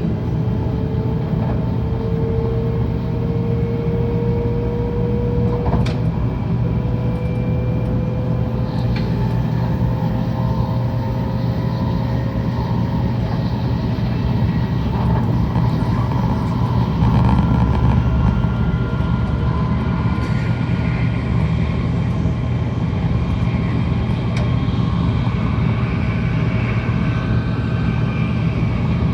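Running noise inside a Tokaido Shinkansen train: a steady low rumble with a thin motor whine that climbs slowly in pitch, the sign of the train gathering speed.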